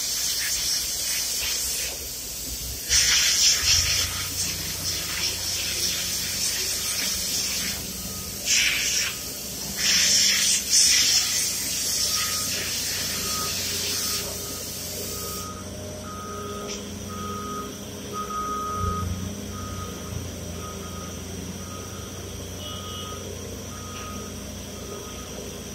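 Compressed air hissing from an air hose in bursts as a small pump part is blown clean; the loudest bursts come about three, nine and eleven seconds in, and the hiss stops suddenly about fifteen seconds in. A high electronic beep repeats through the second half.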